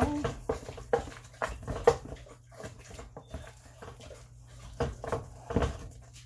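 KitchenAid potato masher thumping down through potatoes in a stainless steel pot, about two strokes a second. The strokes go softer midway and come harder again near the end.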